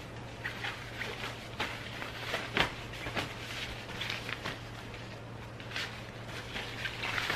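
Fabric drawstring bags being handled and unfolded: scattered brief rustles and a few soft clicks over a low steady hum.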